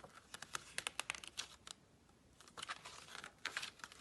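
Faint, irregular clicking and crinkling in two short flurries, with a brief quieter gap between them.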